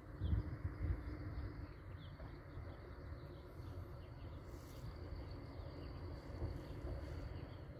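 Wind buffeting the microphone in uneven gusts, with a few faint bird chirps and a faint steady high insect-like tone in the second half.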